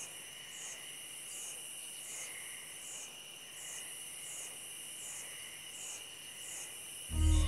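Night insect chorus: crickets trilling steadily, with a second high insect call pulsing regularly about every two-thirds of a second. Near the end a loud, low drum hit breaks in.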